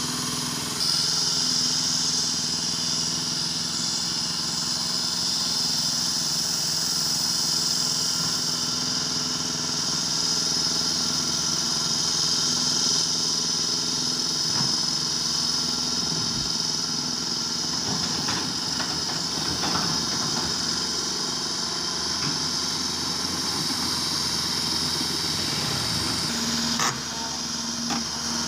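Caterpillar 330 GC excavator's diesel engine running steadily, with a high steady whine over it throughout. Scattered knocks and clatter come in the second half, and a sharp click near the end.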